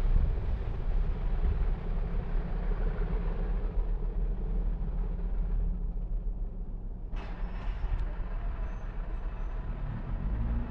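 English Electric diesel engines of a pair of Class 37-type locomotives heard rumbling as they pull away into the distance, the low drone holding on while the higher sound thins out. A brief rush of noise comes about seven seconds in.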